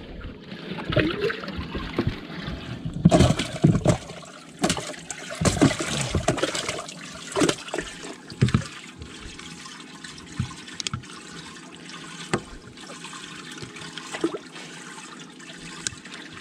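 Water trickling and splashing, with a run of irregular splashes in the first half that then settles to a steadier trickle.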